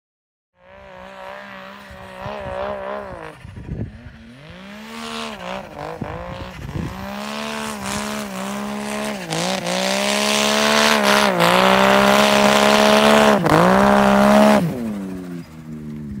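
Snowmobile engine revving hard, its pitch dipping and climbing again and again as the throttle is worked, growing louder with a rushing hiss over it before falling off sharply near the end.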